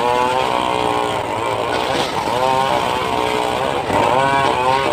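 Motor-driven circular saw running while cutting mahogany. Its pitch repeatedly sags and recovers, about once a second, as the blade loads up in the wood and frees again.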